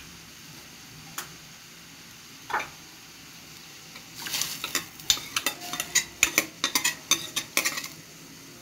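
Brown rice flakes being stirred in water in an aluminium pan to wash them. A light knock comes about a second in and another at two and a half seconds, then about four seconds of rapid scraping and clinking against the pan.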